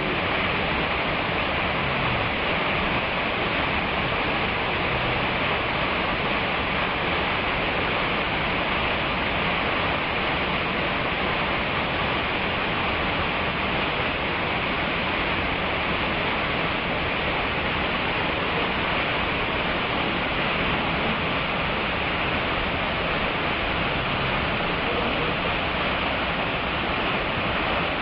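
Waterfall pouring over rock, a steady, unbroken rush of falling water.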